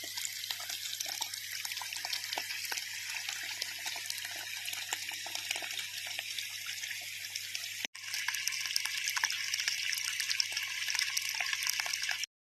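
Rushing water from a dam's spillway discharge, a steady hiss with a faint low hum underneath. It drops out for an instant about eight seconds in and comes back a little louder, then cuts off just before the end.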